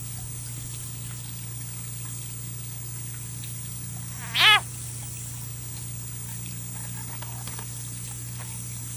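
Leopard frog's distress scream while a ribbon snake swallows it: one short, loud, cat-like wail about four seconds in, its pitch rising then falling, over a steady low hum.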